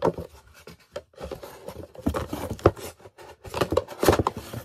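Cardboard packaging being handled: a cardboard box insert pulled out and rubbed against the box, with irregular scraping, rustling and light knocks.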